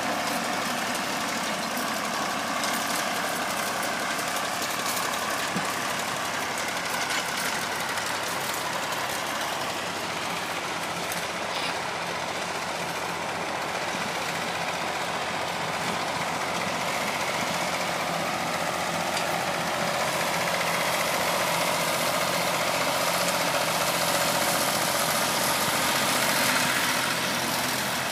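Vintage tractor engines running steadily at working speed: a Fordson Super Dexta turning hay, then a Massey Ferguson 35X cutting grass with a mower, growing louder as it comes closer near the end.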